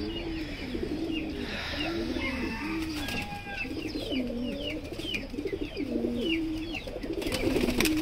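Male domestic pigeons cooing in their cages: one low, rolling coo after another, several birds overlapping, with thin high chirps above them and a few clicks near the end.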